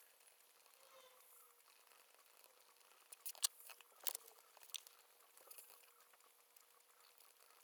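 Near-silent room tone broken by a few short, crisp rustles and clicks from about three to five seconds in, from paper and stationery being handled at a study desk.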